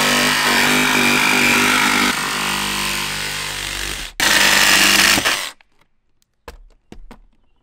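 DeWalt XR cordless jigsaw cutting through a van's sheet-metal roof, the blade chattering in the steel as it cuts the opening for a roof-mounted air cooler. The saw runs for about four seconds, stops for a moment, runs again for about a second and a half, then stops, followed by a few light knocks.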